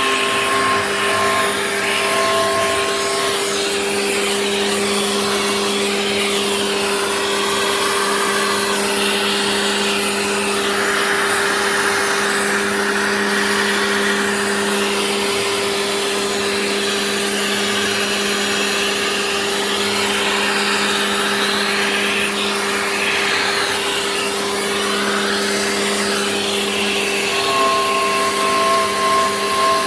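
Genmitsu 3020 PRO MAX CNC router milling: the spindle runs with a steady whine over the hiss of the bit cutting, while the stepper motors whine in pitches that shift and glide as the axes move along the toolpath.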